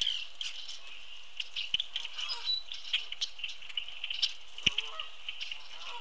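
A flock of red-winged blackbirds and other blackbirds calling at a feeder: a dense, steady chatter of short high calls, with a few lower, curving calls. Sharp knocks come twice, one under two seconds in and one near five seconds.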